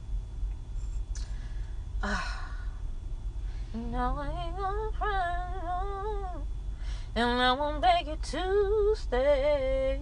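A woman singing unaccompanied, drawn-out wordless notes that waver and slide from about four seconds in, over a steady low hum. A short rushing sound comes about two seconds in.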